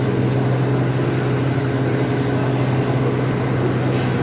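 Steady low mechanical hum that holds even in pitch and level, with a faint tick about two seconds in.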